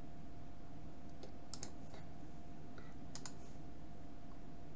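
Computer mouse clicking while browsing a file dialog: a few sharp clicks, including two quick double-clicks about a second and a half apart, over a faint steady electrical hum.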